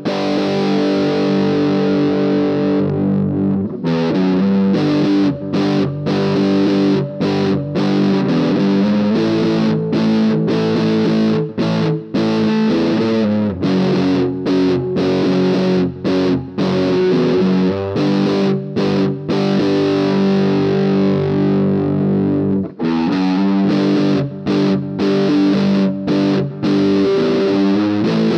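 Harley Benton DC-200 electric guitar played through overdrive, chords ringing with short breaks between them. It is played on its bridge humbucker, then the neck pickup, then both pickups together.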